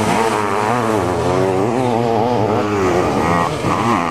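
Sidecar motocross outfits' motorcycle engines racing past on a dirt track, one after another, more than one engine heard at once. The engine notes rise and fall repeatedly as the drivers work the throttle and change gear.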